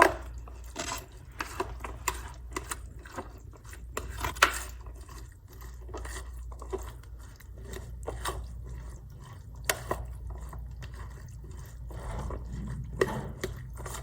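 A utensil stirring a wet mixture of black beans, corn and salsa in a bowl: irregular soft scrapes and clicks against the bowl, with squelching from the wet mix.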